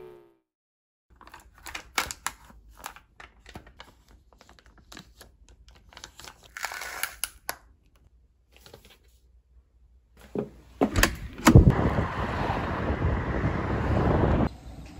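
A run of small clicks and taps from objects being handled. Then two sharp knocks and about three seconds of loud, steady rushing noise that cuts off suddenly.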